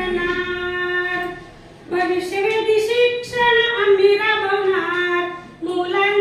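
Unaccompanied female singing of a Marathi song in long held notes, with a short break between phrases about a second and a half in.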